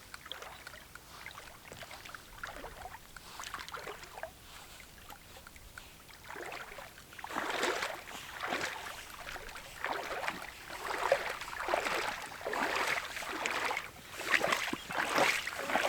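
Water sloshing and splashing in irregular swishes, faint at first and louder and more frequent from about halfway through.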